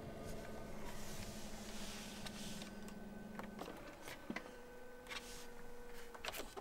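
A few light plastic clicks from the dashboard buttons of a Mercedes-Benz W212 E-Class being pressed, over a faint steady hum inside the car.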